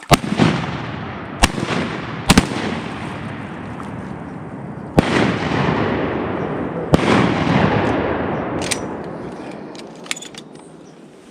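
A volley of about six shotgun blasts over seven seconds, two of them almost together, each followed by a long rolling echo that slowly fades.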